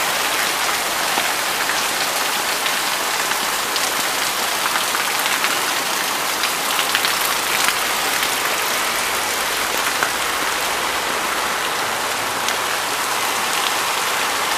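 Heavy rain falling steadily on a flooded street: a dense, even hiss sprinkled with sharp drop ticks.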